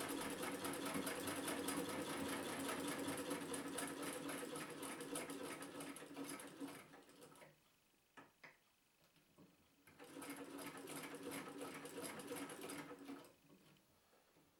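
Jones Family CS hand-crank vibrating shuttle sewing machine running and stitching with a fast, even mechanical clatter. It stops about halfway through, gives a couple of single clicks, runs again for about three seconds, then stops.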